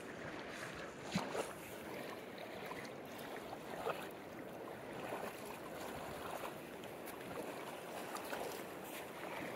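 Shallow river water sloshing and splashing around the legs of men wading as they drag a fishing net, over the steady rush of the river, with a few sharper splashes.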